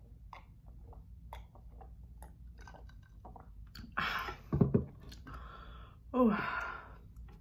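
Close-miked mouth sounds of a woman drinking water from a glass: small wet clicks and swallows. Then, in the second half, a loud breathy burst and a short voiced sound that falls in pitch.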